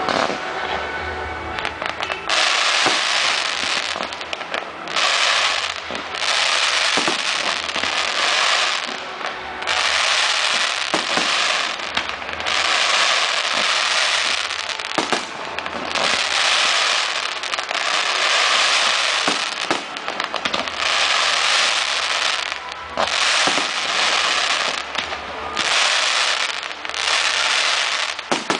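Aerial fireworks going off one after another: sharp bangs and long stretches of crackling, starting about two seconds in and repeating every couple of seconds.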